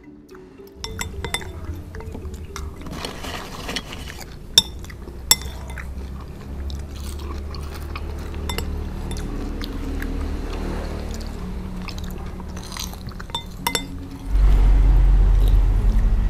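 Metal spoons clinking against ceramic soup bowls while eating, with two sharp clinks about four and a half and five seconds in, over background music that gets louder near the end.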